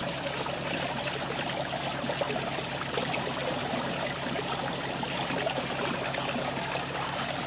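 Water running and splashing steadily into a small pond.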